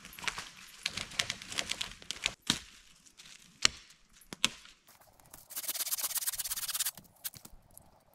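Sticks and branches being handled: a quick run of cracks and snaps, two more sharp single cracks, then a steady rasp lasting over a second about five and a half seconds in.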